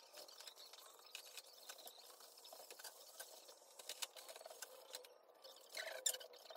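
Faint scratching and light clicks of hands working at a wooden kitchen cabinet, with a couple of sharper clicks about four seconds in and a louder scrape near the end.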